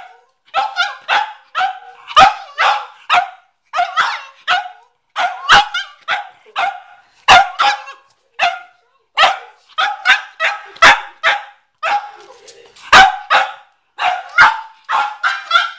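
Cavalier King Charles Spaniel barking over and over in short, sharp barks, about two a second, in quick runs with brief pauses.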